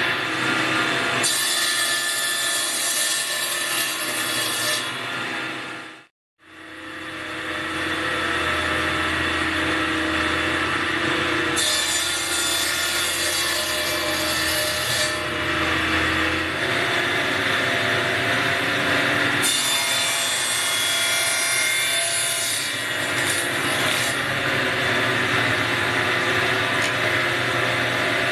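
Table saw running and cutting through small wooden blocks, the blade's note rising into a harsher, brighter rasp during each of several cuts. The sound drops out briefly about six seconds in.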